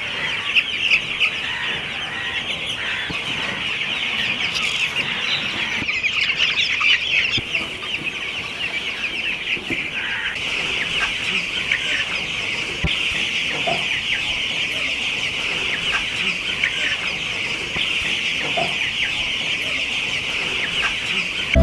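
A large flock of broiler chickens calling continuously, many high-pitched chirps and clucks overlapping into a steady din.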